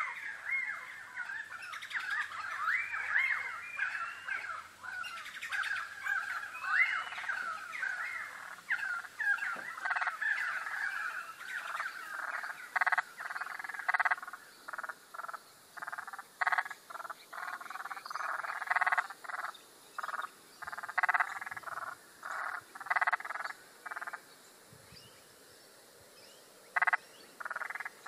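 Birds chirping and whistling in a busy tangle of rising and falling calls through the first twelve seconds or so, then frogs calling in short repeated croaks with brief gaps between them. The frog calls pause for a couple of seconds near the end, then start again.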